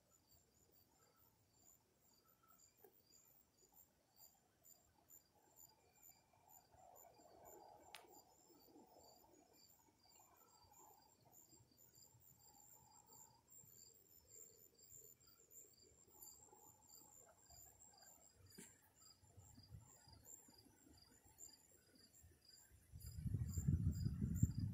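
Crickets chirping faintly in a fast, even pulsing rhythm. From about 23 seconds in, a much louder low rumble sets in.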